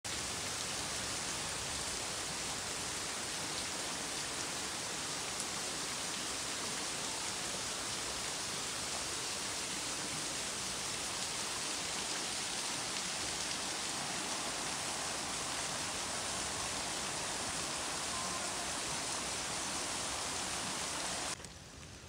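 Steady rain, an even hiss with no let-up, cutting off suddenly about a second before the end.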